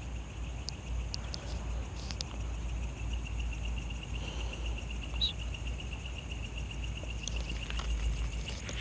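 Night insects chirping: a fast, even, high-pitched pulsed trill comes in about three seconds in and keeps going, over a steady low rumble and a few faint clicks.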